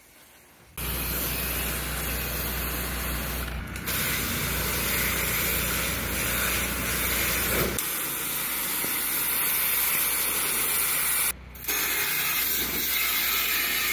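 Pressure washer spraying water: a loud, steady hiss that starts abruptly about a second in and cuts out briefly near the end, with a low hum under it for the first half.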